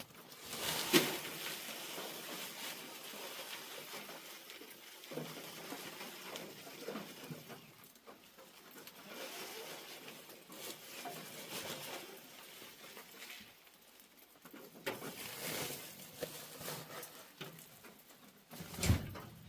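Hens making soft, low murmuring calls over a light pattering, with a sharp knock about a second in and a dull thump near the end.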